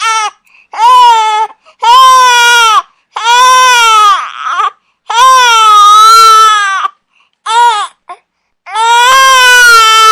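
A baby crying hard: loud, high wails one after another, each about half a second to two seconds long, broken by short catches of breath. One cry about four seconds in breaks into a rougher, strained sound.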